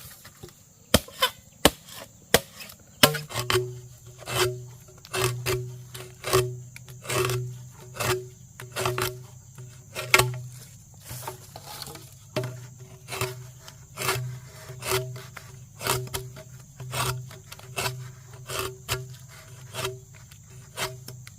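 A hand tool working wood with regular strokes, about one a second, with sharp clicks in between.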